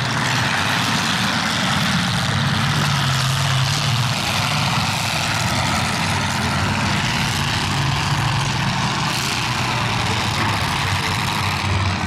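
Demolition derby car engines running steadily: a low engine drone under a dense, loud wash of noise.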